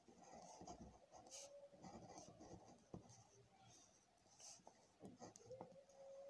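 Faint scratching of a pen drawing lines and writing letters on paper, with a light tap about three seconds in.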